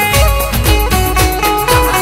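Instrumental break in an Indian folk song: a plucked-string melody of short, quickly fading notes over a steady beat, with no singing.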